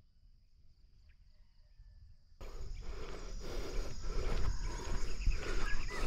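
A faint steady high insect drone, like crickets; about two and a half seconds in, louder footsteps on a gravel dirt track begin, about two steps a second, with a few short chirps over them.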